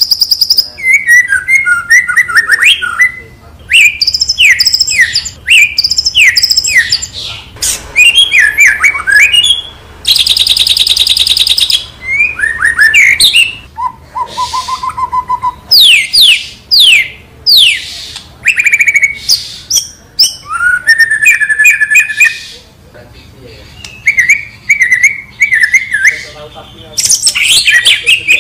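White-rumped shama (murai batu) singing a long, varied song of loud whistled phrases and quick downward-sliding notes, with a dense high rattling trill about ten seconds in and a short steady low whistle just after.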